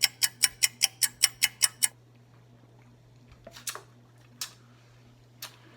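Rapid, even ticking, about five ticks a second, which stops about two seconds in. A few faint scattered clicks follow.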